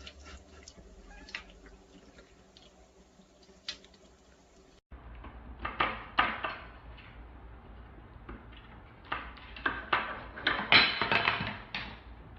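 A faint trickle and drip of water from a tap, then a wooden kitchen cabinet door being tugged and rattled against a latch on its handles, a run of sharp clacks and knocks, thickest near the end.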